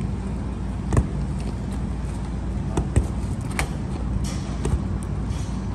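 A crane's engine running steadily as it lowers a steel I-beam, with a few sharp knocks about a second in and again around three seconds in.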